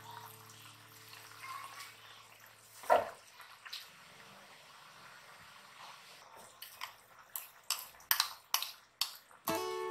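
A metal spoon clinks and scrapes against a ceramic bowl in a run of short knocks, about two or three a second, in the second half, as thick peanut butter is spooned into a simmering stew. A single sharp knock comes about three seconds in, with faint liquid noise between.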